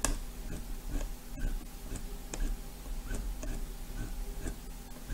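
Light, irregular clicking at the computer, about a dozen small clicks spread unevenly, over a steady low electrical hum.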